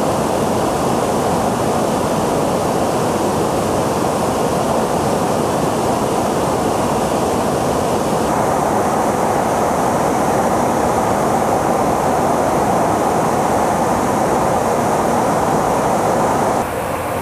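Steady loud rush of aircraft engine and airflow noise heard from inside an airliner-type tanker in flight. Its tone changes abruptly twice, about eight seconds in and near the end.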